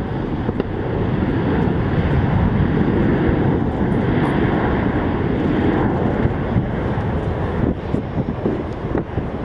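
Boeing 777-200ER's twin jet engines at takeoff thrust: a steady, dense rumble that swells slightly a couple of seconds in.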